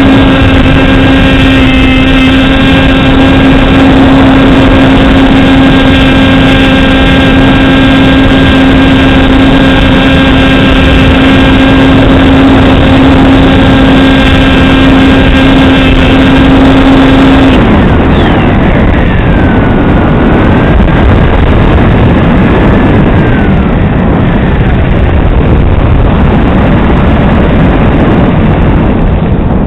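Model aircraft motor and propeller heard through the onboard camera's microphone, a loud steady hum that cuts off abruptly about two-thirds of the way in, as the throttle is closed. After that only wind rushing over the airframe and microphone is left while the plane glides.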